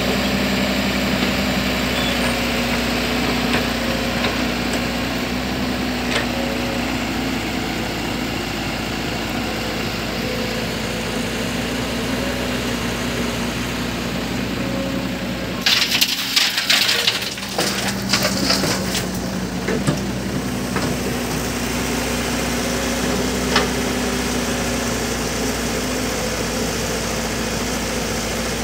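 Caterpillar 311 hydraulic excavator's diesel engine running steadily. A little past the middle comes a few seconds of loud clattering knocks, and a single knock follows a few seconds later.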